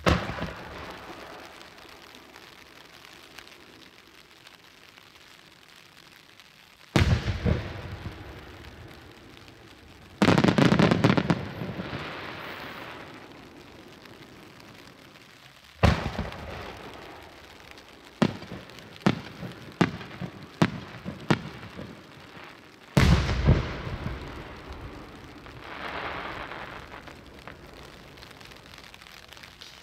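Large 12-inch shakudama firework shells launching and bursting: heavy booms right at the start and about 7, 10, 16 and 23 seconds in, each followed by a long rolling echo. Between the last two booms comes a string of about six sharp pops.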